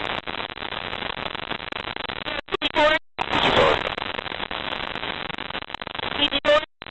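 Coast Guard MH-65 Dolphin helicopter noise heard through the crew intercom during a hover: a steady, crackly rush that cuts out abruptly a few times, with brief snatches of crew voice about two and a half seconds in and near the end.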